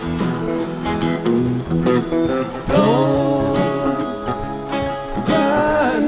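Live rock band playing, led by electric guitar, with notes bent upward about three seconds in and again near the end.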